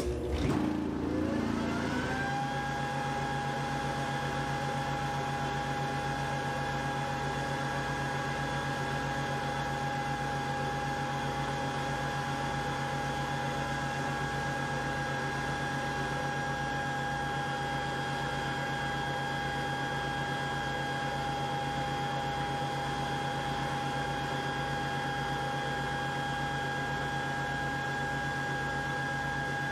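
Old JKM flow bench's belt-driven blower spinning up after being switched on: a rising whine over about two seconds, then running steadily with a high whine over a low hum and a slow low beat. The long-idle drive belt has a hard spot in it. Really loud.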